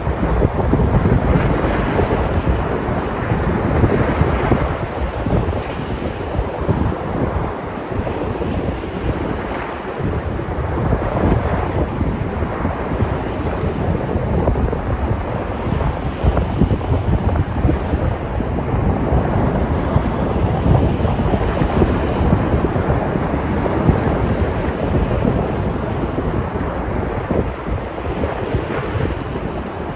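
Sea surf: waves breaking and washing on a shore in a steady wash that swells and eases, with wind rumbling on the microphone.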